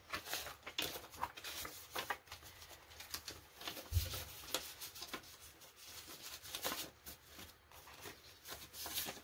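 Paper banknotes rustling and flicking as bills are handled, pulled from a cash envelope and counted, in many short, soft bursts. A soft low thump about four seconds in.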